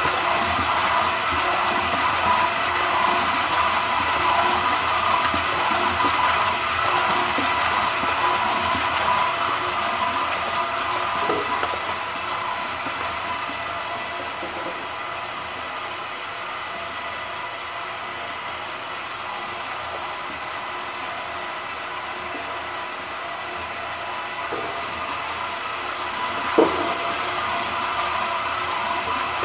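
Cosmetic mixer tank's electric motor and agitator running steadily, with a high whine over a noisy hum, churning a thick white cream. It gets quieter for a while in the middle, and a single short knock comes near the end.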